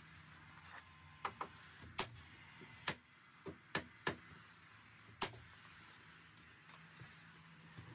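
Nail gun firing into a timber stud frame: about eight sharp, separate shots at an uneven pace, the loudest in the middle, over a faint steady hum.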